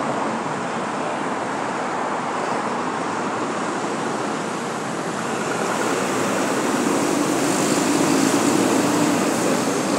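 Steady road and wind noise from a moving vehicle, a rushing hiss with no clear engine note, growing louder about six seconds in.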